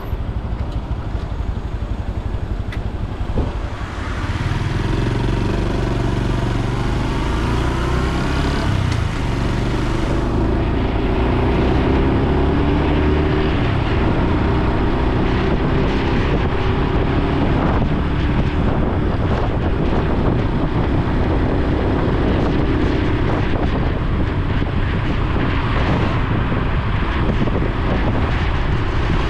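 Honda Super Cub C125's single-cylinder four-stroke engine and exhaust on the move. About four seconds in it grows louder and climbs in pitch as the bike accelerates, then runs steadily at cruising speed.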